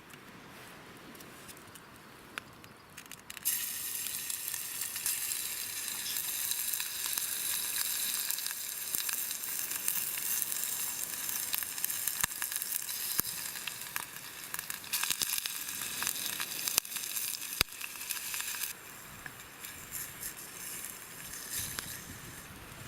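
Food sizzling in a hot pan over a campfire, with scattered crackles. The sizzle starts suddenly a few seconds in and drops off abruptly about three-quarters of the way through.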